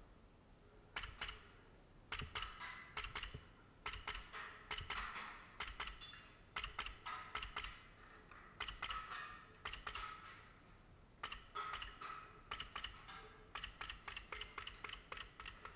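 Airsoft guns firing in short bursts of sharp clicks and cracks, one burst about every second.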